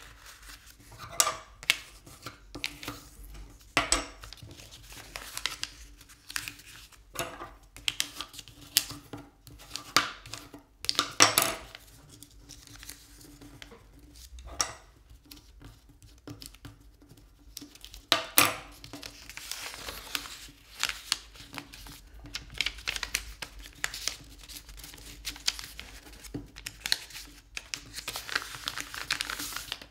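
A sheet of paper being folded and creased by hand: irregular crackles and rustles, a few of them sharp and loud.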